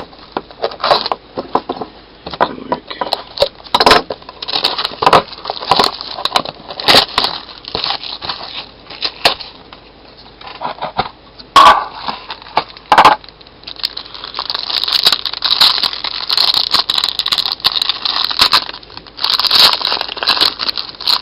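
A baseball card pack being torn open, its wrapper crinkling and crackling, and the cards inside being handled and shuffled, in irregular rustling bursts.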